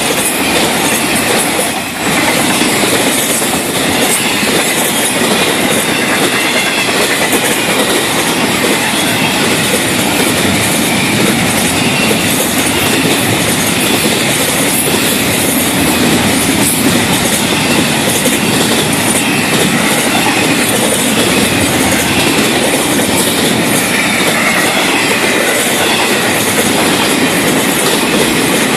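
Freight cars of a long Florida East Coast Railway freight train rolling past: a loud, steady rumble and clatter of steel wheels on the rails, with a faint wavering wheel squeal over it.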